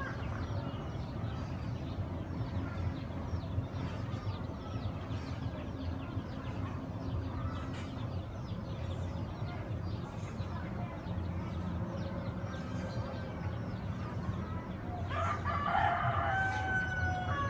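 A rooster crows once, about fifteen seconds in, with held notes that step down at the end, over a steady low rumble.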